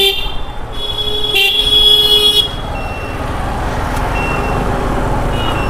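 A vehicle horn honks during the first two and a half seconds, the loudest blast lasting about a second, over steady road traffic noise.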